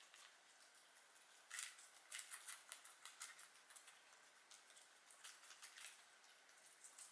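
Guinea pigs chewing lettuce and carrot: faint runs of quick, crisp crunches, coming in bursts with short pauses between.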